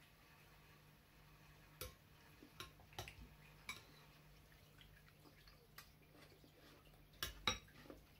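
Metal spoon clinking against a bowl while eating: several sharp separate clicks, the loudest pair about seven seconds in, over a faint steady low hum.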